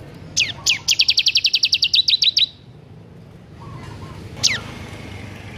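Bar-winged prinia (ciblek) singing: one high down-slurred note, then a fast run of about twenty down-slurred notes at roughly ten a second lasting nearly two seconds, and a single down-slurred note about two seconds later.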